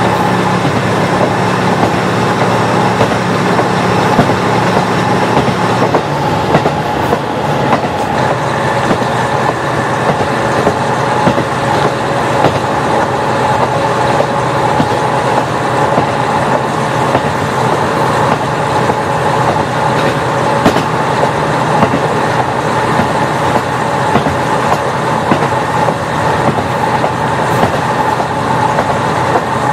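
KiHa 40 diesel railcar running along the line, its wheels clicking over rail joints, with the steady drone of the diesel engine and a steady whine. The low engine note changes about six seconds in.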